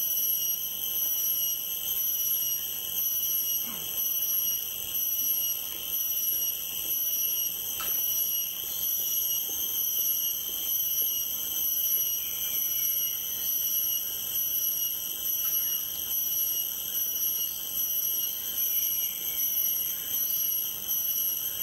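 Insect chorus shrilling steadily, several high piercing tones at once, swelling and fading about once a second.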